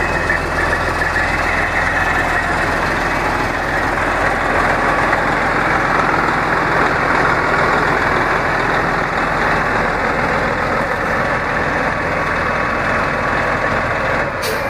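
Diesel engine of a 1999 International 9900 semi tractor idling steadily.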